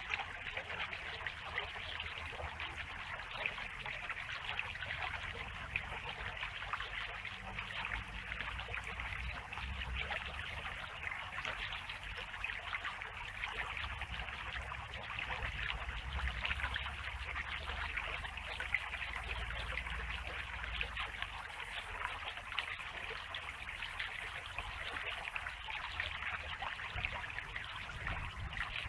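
Small clear stream trickling and babbling over stones in a steady flow, with a low rumble underneath.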